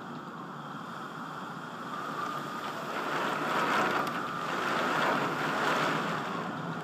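Thunderstorm wind and rain, a steady rushing that swells for a few seconds in the middle and then eases, with wind buffeting the microphone.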